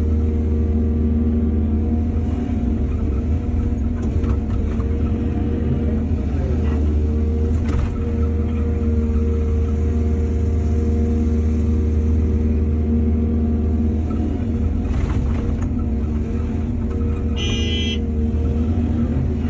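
Excavator's diesel engine running steadily with a deep hum; its pitch dips and recovers briefly now and then. A few short knocks and a brief rapid rattle near the end.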